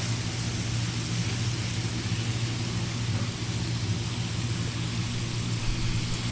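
Steady low mechanical hum under a constant frying hiss in a kitchen.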